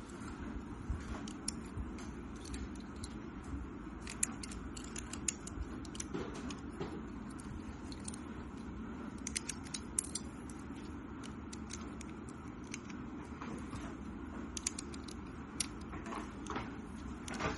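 Plastic LEGO pieces of a brick-built rifle model being handled: scattered light clicks and clacks over a steady low hum.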